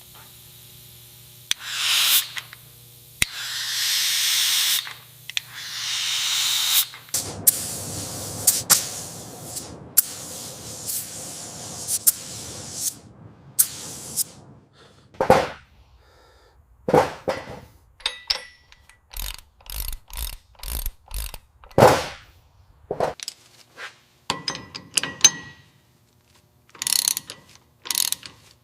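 Workshop noise of hand tools on metal engine parts: three bursts of hissing in the first several seconds, then a long, irregular run of sharp metallic clicks, clanks and ratcheting.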